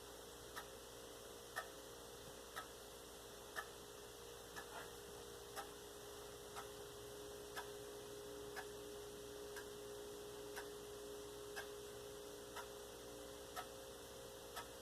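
Faint, evenly spaced ticks about once a second, clock-like, over a steady low hum in a quiet room.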